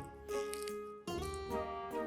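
Background music led by strummed acoustic guitar, briefly dropping away about a second in.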